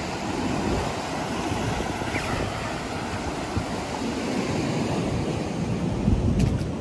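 Ocean surf washing over a rocky shore as a steady rush, with wind gusting on the microphone, most strongly about six seconds in.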